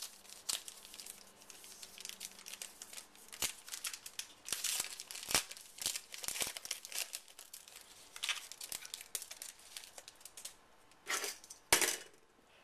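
Crinkling and tearing of a trading-card pack wrapper as a pack is opened by hand, an irregular run of crackles with a couple of louder crackles near the end.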